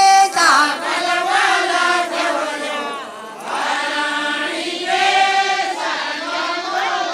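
A group of women singing a devotional folk song together, without instruments, in long drawn-out lines. There is a short pause between phrases about three seconds in.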